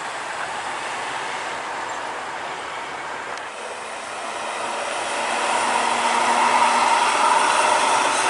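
Large coach bus driving past on a highway, its engine and tyre noise swelling to a peak about two-thirds of the way through.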